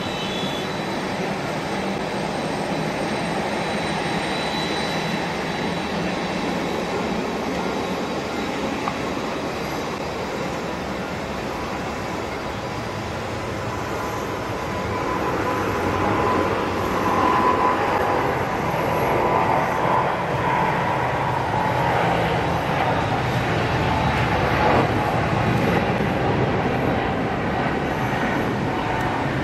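Boeing 777-200ER's twin GE90 turbofans going to takeoff thrust: a steady jet engine noise that swells about halfway through as the airliner rolls down the runway and lifts off, with a whine near the loudest part.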